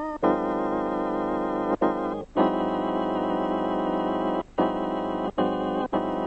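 Organ music: held chords, slightly wavering, that change every second or two with short breaks between them.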